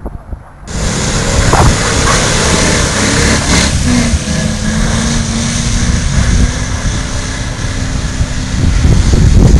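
Land Rover Discovery engine running hard as the 4x4 spins circles in deep snow, with a steady engine drone in the middle. Heavy wind noise on the microphone. The whole loud sound starts suddenly about a second in.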